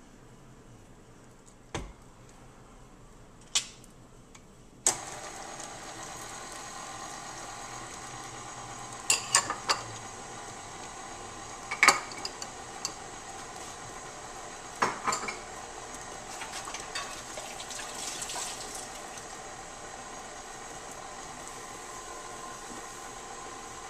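KitchenAid tilt-head stand mixer switched on about five seconds in, its motor running steadily as the flat beater mixes butter, sugar and eggs in the stainless steel bowl. A few knocks come before it starts, and sharp clinks of a cup and spoon against the bowl ring out over the running motor several times.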